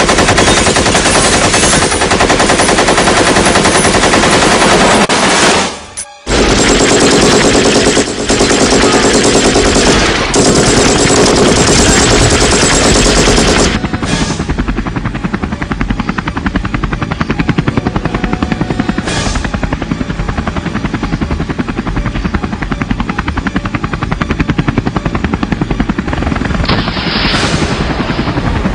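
Long stretches of rapid automatic gunfire, machine-gun fire in fast continuous strings, with a short break about six seconds in and going on a little quieter from about fourteen seconds.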